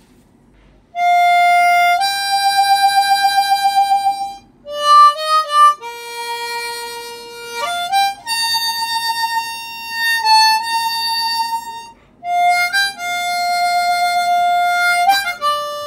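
Blues harmonica in B-flat, played as a slow solo of long held notes, some with a wavering vibrato and bends between them, starting about a second in with a few short breaks. One B-flat note is slightly out of tune, which the player notices afterwards.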